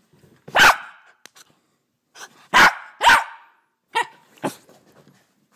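Jack Russell terrier puppy barking in short, sharp, excited barks: one loud bark about half a second in, a quick loud pair about two seconds later, then two shorter, quieter barks.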